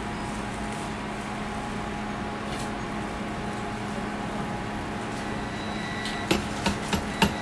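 Steady hum of kitchen machinery with a constant low drone, while thick waffle batter is poured from a steel mixer bowl; a few sharp knocks come near the end.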